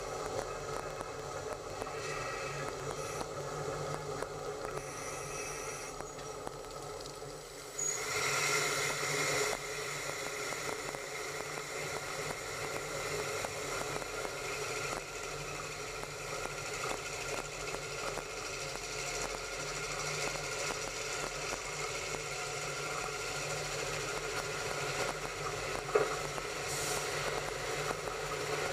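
A train running along the track, a steady mechanical rumble and hum. About eight seconds in the sound turns abruptly louder and brighter, and a single sharp click stands out near the end.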